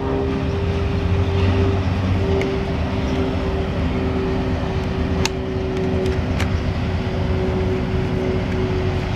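A steady engine hum: a constant low drone with a fixed pitched whine over it, and two faint clicks about five and six seconds in.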